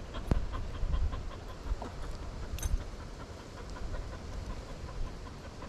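A dog panting, with scattered small clicks and a low rumble of wind on the microphone.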